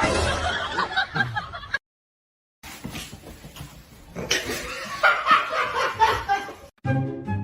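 People laughing and giggling, with a brief silent gap about two seconds in before more laughter and voices.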